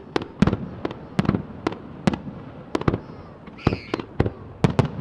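Starmine fireworks barrage: a rapid run of sharp bangs, about two to three a second, from shells bursting one after another, each with a short low rumble after it.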